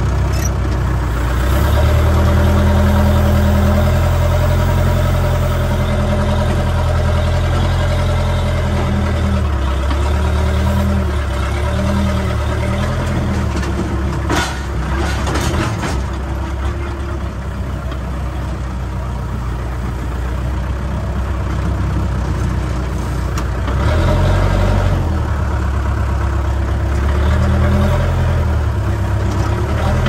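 JCB backhoe loader's diesel engine running, its revs rising and falling several times, with a few sharp knocks about halfway through.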